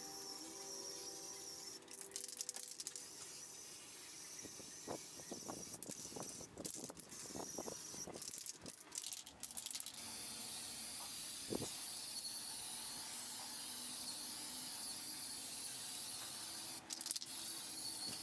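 Aerosol spray-paint can hissing as white paint is sprayed, in short bursts with brief pauses, then in one long steady pass. Light rattling is mixed in about midway.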